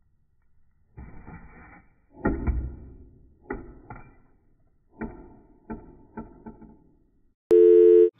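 Crayons clattering and rattling in a plastic bag as they are rummaged, in several short bursts. Near the end comes a loud electronic test-tone beep of about half a second, which cuts off abruptly.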